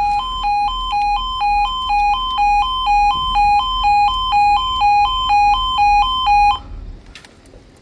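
Railway level crossing's two-tone audible warning alarm (yodalarm): a lower and a higher electronic tone alternating steadily, a little under twice a second, while the barrier moves. It cuts off suddenly about six and a half seconds in, once the barrier is down.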